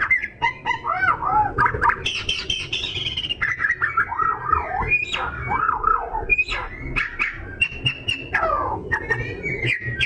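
Oriental magpie-robin (kacer) singing without pause: a rapid, varied song of clear whistles that rise and fall, quick warbled phrases and sharp chips.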